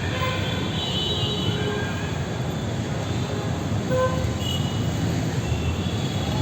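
Heavy vehicle noise: a dense, steady low rumble with brief high-pitched squealing tones on top.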